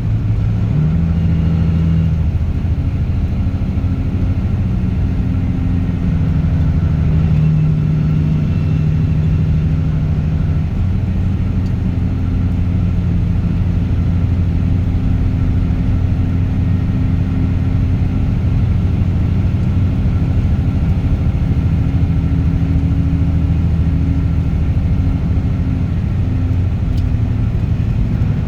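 Straight-piped Caterpillar C15 ACERT inline-six diesel in a truck, running steadily while driving, its note shifting in pitch a few times as the revs change.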